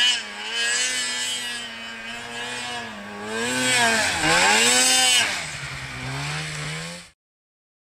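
Stock Polaris 900 Dragon snowmobile's two-stroke twin engine revving under throttle: the pitch holds high, drops sharply about four seconds in and climbs again as the throttle is grabbed, then the sound breaks off abruptly about a second before the end.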